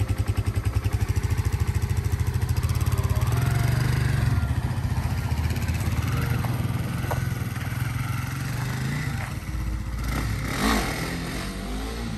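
Kawasaki KLX300 dual-sport's single-cylinder four-stroke engine running with an even, pulsing beat, easing off a little about four seconds in.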